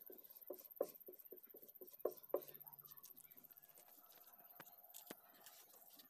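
Faint scratching of a squeegee rubbing a vinyl sticker down onto a painted vehicle body panel, a quick run of short even strokes for about the first two and a half seconds. Then faint room tone with a couple of light clicks.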